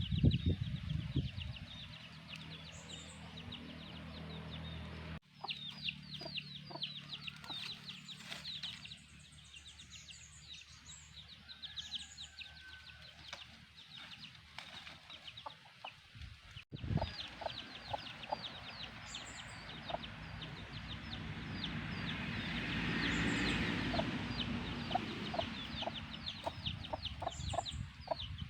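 A brood of chicks peeping rapidly and continuously, with a hen clucking among them. The sound breaks off abruptly for an instant twice.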